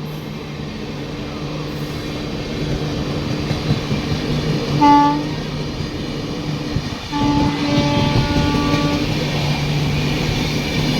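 Greaves CPCB II diesel generator engine of an end-on-generation power car running with a steady drone, a sound the title calls faulty. A train horn sounds briefly about five seconds in, then again for about two seconds from around seven seconds.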